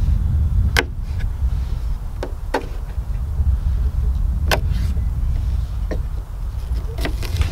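Knife cutting asparagus spears on a wooden cutting board: about seven sharp, unevenly spaced taps of the blade striking the board, a pair close together near the end. Under them runs a steady low rumble.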